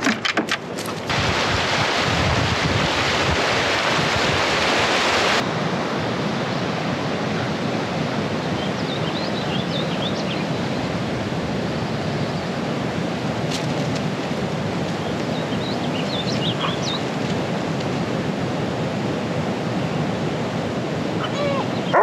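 Steady rushing outdoor noise that comes in abruptly about a second in and drops abruptly to a slightly lower, steady level about five seconds in. Faint high chirps come through twice, near the middle and about two-thirds of the way through.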